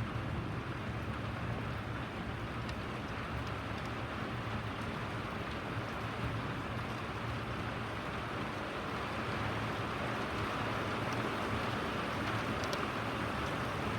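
Steady rain falling, an even hiss with a low steady rumble underneath and a few sharp drip taps near the end.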